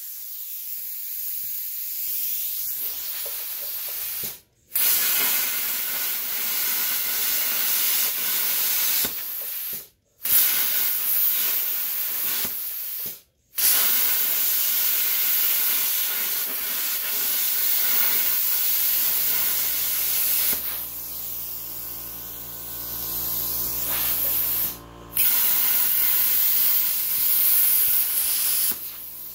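Air plasma cutter hissing as it cuts a circular hole through steel plate. The hiss cuts out abruptly for a moment four times. From about two-thirds of the way through, a steady machine hum runs beneath it. The cutter is fed by an air compressor that is having more and more problems supplying air.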